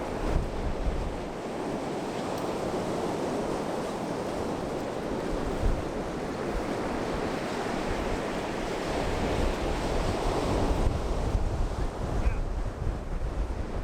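Gulf surf washing steadily onto the beach, with wind buffeting the microphone at the start and again near the end.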